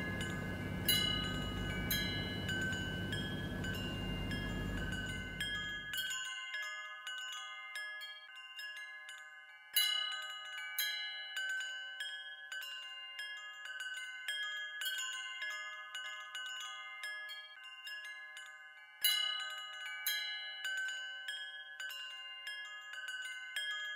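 Bell-like chiming notes ring out over and over, each one sharp at the start and then sustained, with stronger strikes about ten seconds in and again near nineteen seconds. A low rumble underneath stops suddenly about six seconds in.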